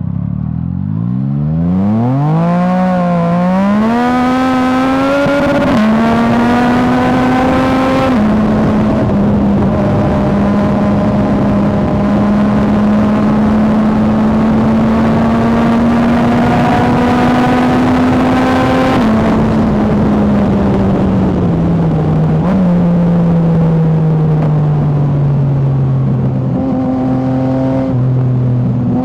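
Yamaha MT-09's inline three-cylinder engine running through an Akrapovič exhaust. It accelerates with its pitch climbing over the first several seconds, with sudden drops at gear changes, then holds a steady pitch for about ten seconds. It then slows, the pitch falling in steps toward the end.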